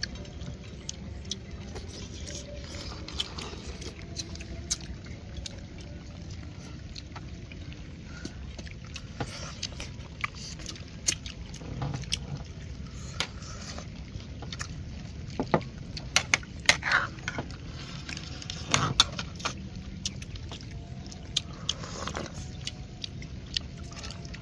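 Eating at a meal: irregular sharp clicks of chopsticks and a ladle against ceramic bowls and a metal pot, with soup being sipped, over a steady low rumble.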